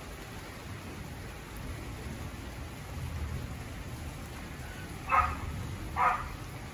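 Heavy rain falling steadily over a low rumble of distant thunder. Near the end a dog barks twice, about a second apart.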